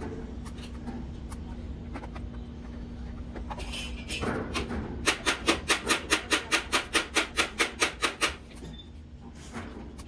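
TIG welding arc on stainless steel sheet, pulsing in a rapid even rhythm of about five beats a second for some three seconds, starting about halfway through. Before it there is only a steady low hum.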